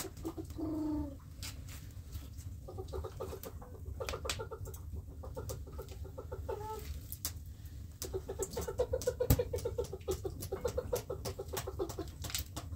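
Hens clucking in quick runs of pulsed notes, with scattered sharp clicks and one louder knock about nine seconds in.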